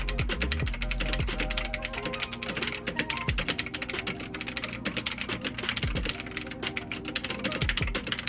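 Fast typing on a DAREU EK87 mechanical keyboard with clicky blue switches: a dense, continuous run of sharp key clicks. Background music plays underneath.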